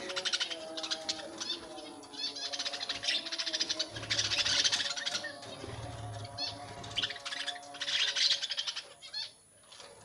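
A flock of budgerigars chattering: rapid chirps, clicks and warbling in loud spells, dropping quieter near the end.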